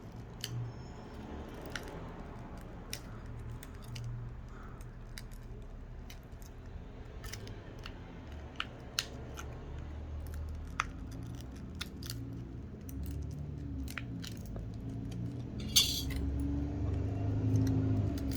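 Scattered small clicks and scrapes of a thin flat pry tool and fingers working on a smartphone's glass screen and plastic frame, with a low steady hum underneath. A brief louder scrape comes about sixteen seconds in.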